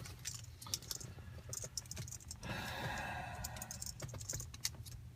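Small irregular plastic clicks and rattles of airbag connectors and wiring being handled and plugged in at a steering wheel hub, with a soft rustling for about two seconds in the middle.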